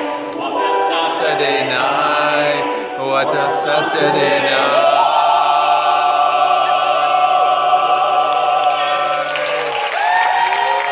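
A man and a woman singing a duet, closing on one long held final note for about five seconds. Applause breaks out just as the note ends, near the end.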